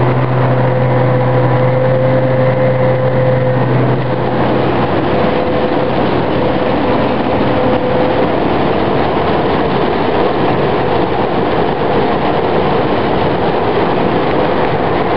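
Combine harvester running under load while cutting wheat, heard from on board: a loud, steady din of engine and threshing gear. A low hum fades out about four seconds in.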